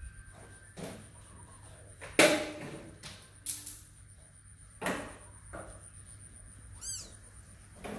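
Kittens play-fighting on a concrete floor: a string of short scuffling and scraping noises, about one every second or so, the loudest about two seconds in. A brief high chirp just before the end.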